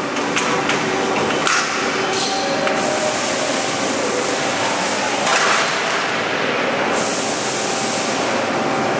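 TDC duct-flange roll-forming machine running: a steady machine hum under a loud hiss that cuts off about seven seconds in. A few sharp clicks and knocks come in the first three seconds and once more a little after five seconds.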